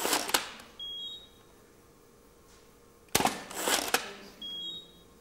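Two studio flash shots: about three seconds in, a sharp click of the shutter and flash firing with a short rush of noise after it. Each shot is followed about a second later by a short high beep from the studio flash signalling it has recycled and is ready to fire again, heard twice, once near the start and once after the second shot.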